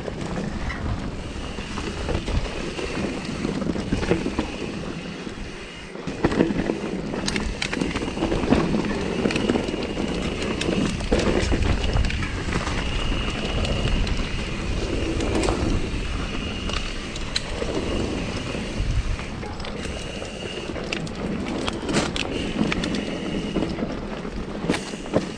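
Mountain bike riding down a rough singletrack: tyres rolling over dirt and rock, with frequent rattles and knocks from the bike and wind buffeting the microphone.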